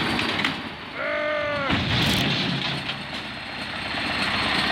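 A vehicle's engine running as a steady rumble, with a short pitched call about a second in and a brief sharp noise just after.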